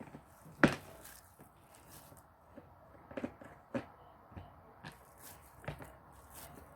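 Scattered knocks and clicks of kitchen handling as kabab mince is worked on skewers, with one sharp knock about a second in and several lighter taps after.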